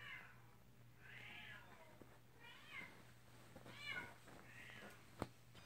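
Bengal kitten mewing: about five short, high mews roughly a second apart, with a single sharp click near the end.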